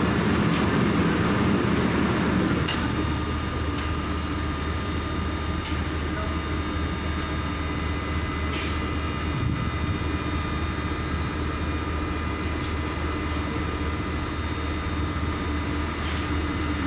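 Machinery running steadily with a constant hum and a thin high whine, a louder rushing noise in the first couple of seconds and a few sharp clicks.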